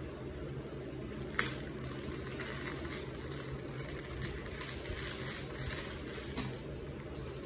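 Clear plastic candy bag crinkling as it is opened and rummaged through, with one sharp crackle about a second and a half in, over a steady low hum.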